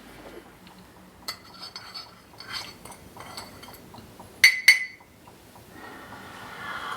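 A teaspoon clinking against a coffee mug while milk is stirred in: light scattered clinks, then two sharp ringing clinks about four and a half seconds in.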